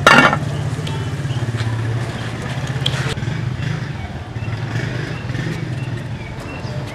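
An engine running with a low, steady drone, after a brief loud burst of noise right at the start.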